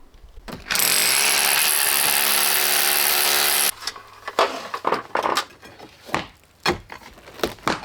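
A power tool runs steadily for about three seconds and cuts off abruptly. Scattered knocks and clatter follow over a faint low hum.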